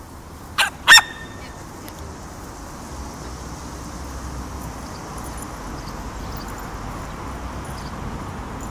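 A small dog gives two short, sharp barks about a second in, the second ending in a brief ringing tone. Steady traffic noise runs underneath.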